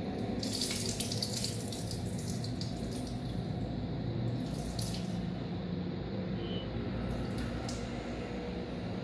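Water running and splashing in a vessel as coarsely ground rice and moong dal are rinsed, with the loudest splashing near the start.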